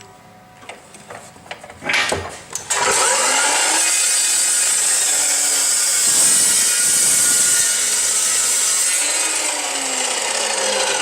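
A power saw cutting short spacer pieces off 1-inch DOM steel tubing. A few knocks come first, then a steady, loud cutting sound starts about three seconds in and keeps going.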